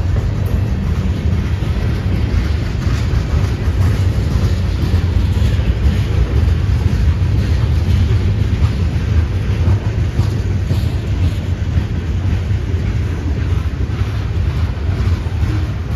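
Mixed freight cars (covered hoppers, a tank car, a boxcar) rolling past close by: a steady low rumble of steel wheels on rail.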